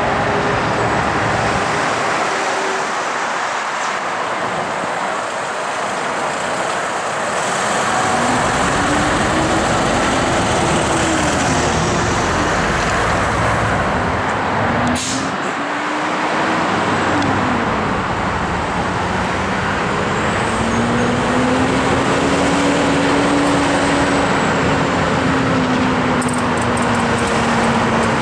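Road traffic with heavy diesel vehicles passing at a roundabout, their engine pitch rising and falling several times as they pull away and change gear. A single sharp click about halfway through.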